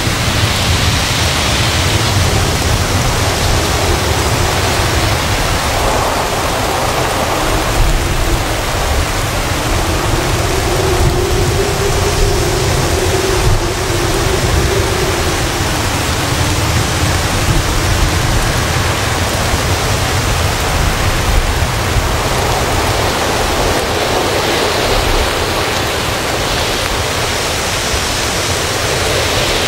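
Heavy rain and strong gusting wind lashing coconut palms: a loud, steady rushing noise, with a faint howl that rises and falls in pitch.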